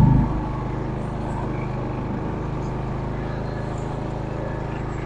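Simplicity rear-engine riding mower's small engine running steadily under the rider, a little louder at first and then easing to an even hum just after the start.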